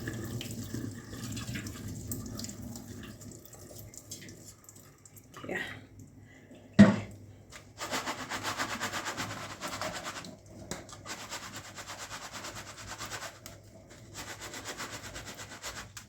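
Dirty water being poured off a bowl of washed omena (small dried fish), with a single sharp knock about seven seconds in. After the knock comes a long run of fast, close-set rustling and clicking as the wet fish are handled and drained.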